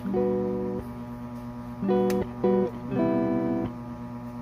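Background music: acoustic guitar strumming chords in a short repeating rhythm.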